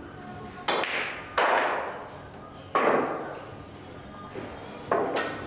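Pool balls knocking sharply four times, each knock ringing on briefly, as the balls are gathered and set down on the table to be racked.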